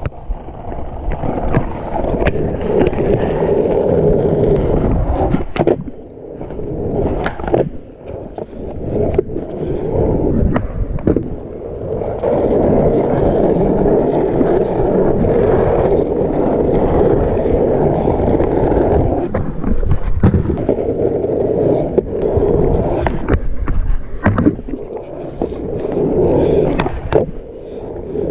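Longboard on soft 65 mm Seismic Encore urethane wheels rolling over asphalt in long stretches. Sharp knocks of the board striking the pavement come between the runs of rolling.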